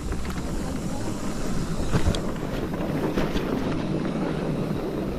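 Wind buffeting the microphone over the rumble of an electric mountain bike's tyres on a rocky, gravelly downhill trail, with sharp knocks and rattles as it hits stones, the loudest about two seconds in.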